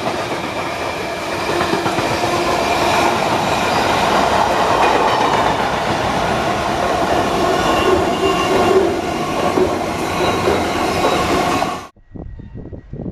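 Class 88 electric locomotive and its train passing at speed: a loud, steady clatter of wheels over the rails with a faint squeal. It cuts off suddenly near the end.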